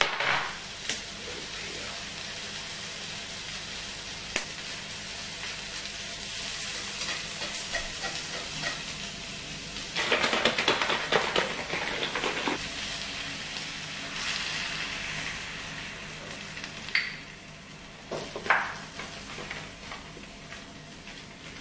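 Spinach frying in a pan on the hob, with a steady sizzle. About ten seconds in there is a louder stretch of noise lasting a couple of seconds, and near the end come a couple of short knocks.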